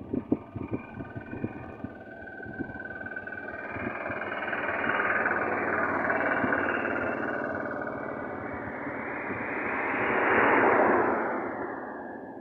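Passing vehicle noise: a swell of road noise that builds from about three seconds in, eases, then rises to a louder peak near the end and fades away. A few scattered taps and knocks in the first two seconds.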